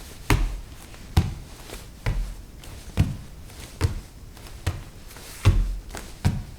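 Bare feet walking on a wooden floor: soft heel-and-toe thuds at a steady walking pace, roughly one step a second.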